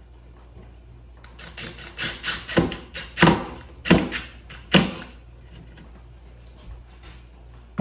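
Hinge hardware and a plywood cabinet door being handled: a cluster of about six knocks and scrapes between about one and five seconds in.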